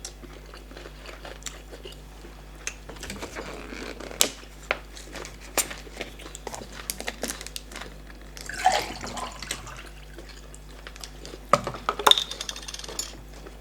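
Close-miked eating of starch fufu with bitter leaf soup and meat: wet chewing with many sharp mouth clicks and smacks, and two longer, louder wet sounds, one about nine seconds in and another near the end.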